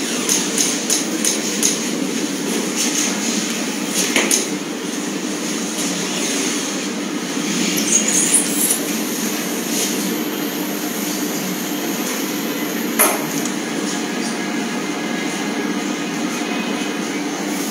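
Steady low rumble of hall noise, with a few short clicks in the first two seconds and single sharp clicks at about four and thirteen seconds.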